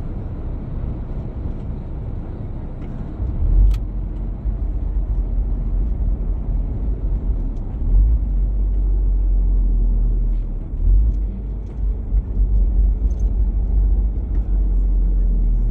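Truck cab interior while driving: steady low engine drone and road rumble, the deep rumble swelling about three seconds in and again from about eight seconds, with a single faint click near four seconds.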